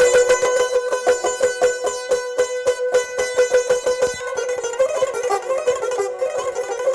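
Azerbaijani tar played with fast tremolo picking on one held note, moving about four seconds in to a quicker melodic run across several notes.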